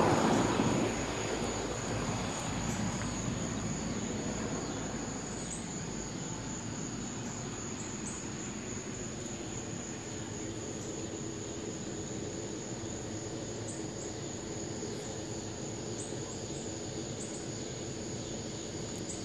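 Steady, high-pitched chorus of night insects.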